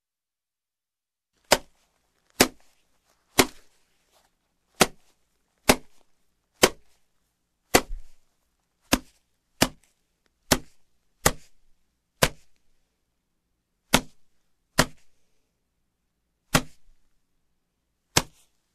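Body slaps: about sixteen single, sharp slaps spaced unevenly, roughly a second apart, each short and dying away quickly.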